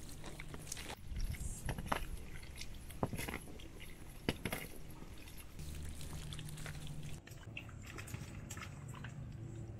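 Water trickling and dripping, with a few sharp clicks and knocks scattered through it.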